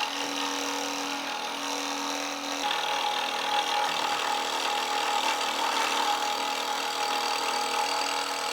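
Hegner Multicut 2S scroll saw running, its reciprocating blade cutting steadily through dense Bubinga hardwood. The machine's hum changes to a higher pitch about two and a half seconds in.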